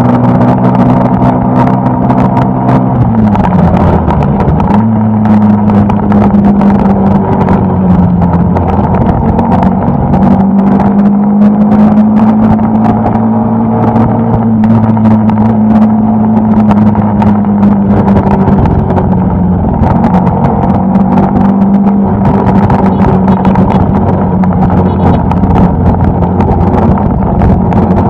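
Suzuki Gixxer SF250's single-cylinder engine running steadily at cruising speed, with wind rushing over the microphone. The engine note dips briefly about three seconds in, then settles back to a steady pitch.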